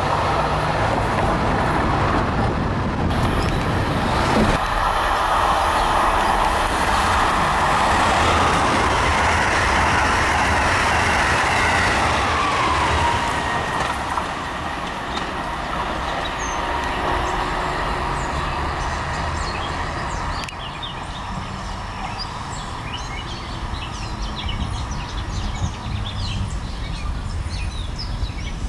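Amtrak electric passenger trains passing at speed: a loud, steady rush of wheels on rail and air, with a whine that falls in pitch about ten seconds in as a train goes by. In the last third it is quieter, with birds chirping over the low rumble of a distant train.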